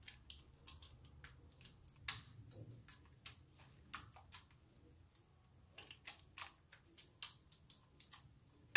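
Silicone spatula mashing softened butter and eggs in a ceramic bowl: faint, irregular clicks and scrapes, a few a second, as the spatula taps and drags against the bowl.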